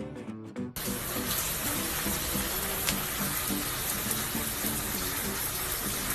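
Water running steadily from a tap, starting abruptly about a second in, over background music.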